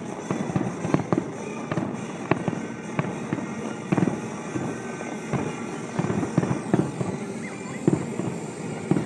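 Fireworks display going off: a steady run of sharp bangs and pops at irregular intervals, often several a second.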